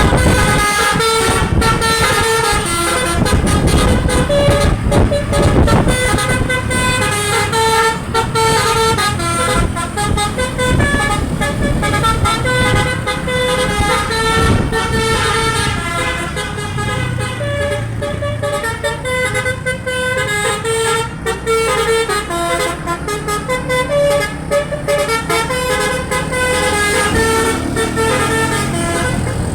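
Basuri telolet multi-tone air horn on a tour bus, played by hand as a koplo-style tune: notes switch in quick succession over a low rumble.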